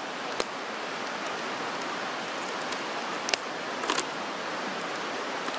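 Steady rushing hiss of a nearby river. Over it come a few short clicks and crinkles of a cardboard biscuit box being opened by hand, the clearest a little after three seconds and around four seconds in.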